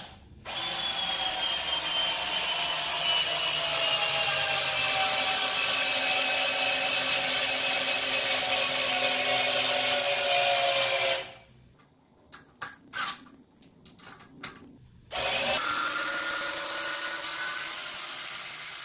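Ridgid R82005 12V cordless drill-driver driving a 13 cm hex-head screw into wood without a pilot hole. The motor whine runs for about ten seconds, slowly falling in pitch, then stops. A few short bursts follow, and it runs again steadily for the last few seconds.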